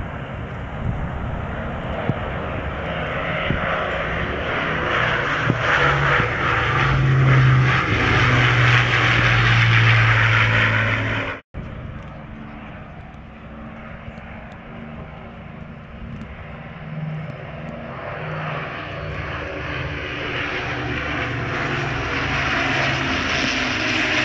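B-17 Flying Fortress and Avro Lancaster flying over together, the steady drone of their piston engines (the B-17's Wright Cyclone radials and the Lancaster's Rolls-Royce Merlin V12s) growing louder as they approach. The sound drops out for an instant about halfway through, then builds again.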